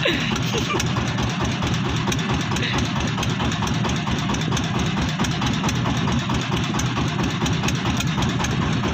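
Boat engine idling steadily, a low hum with a fast, even pulse.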